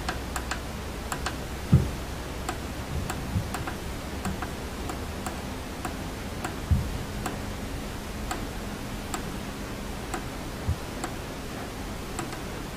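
Small push buttons on a digital charge controller clicking under a fingertip as they are pressed again and again, about one or two clicks a second and unevenly spaced, with a few soft low thumps and a faint steady hum behind.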